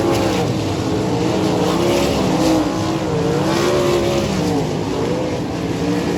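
Racesaver sprint car's 305 V8 engine running hard, its pitch swinging up and down several times as the revs rise and fall.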